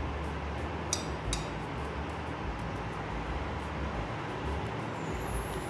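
A metal spoon clinks twice against a plate, two short ringing taps about half a second apart about a second in, over a steady low background hiss.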